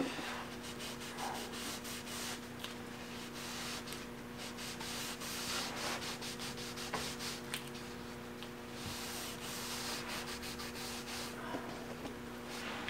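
Rag loaded with wood stain being rubbed in short strokes over a wooden cabinet door, working the stain into the panel's groove and corners: a faint, uneven scratchy rubbing.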